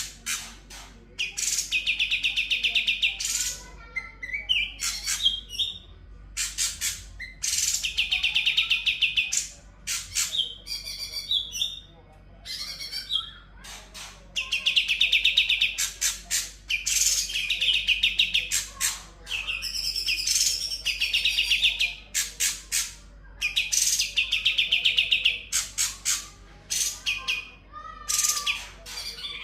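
Cucak cungkok singing in full 'ngebren' style: rapid rattling trills, each about one to two seconds long, repeated again and again. Between them come shorter, varied phrases copied from other birds such as the konin and kapas tembak.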